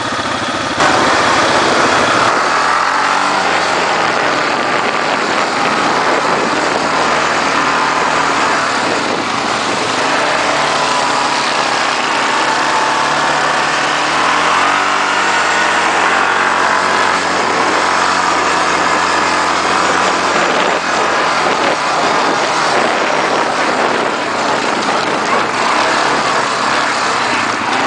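ATV (quad bike) engine running hard while riding a dirt track, its revs rising and falling. The revs climb a couple of seconds in and again about halfway through.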